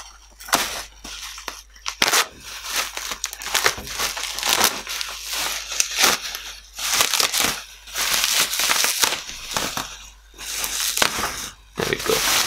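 Bubble wrap crinkling loudly as it is pulled and unwrapped by hand, in irregular bursts with many sharp clicks.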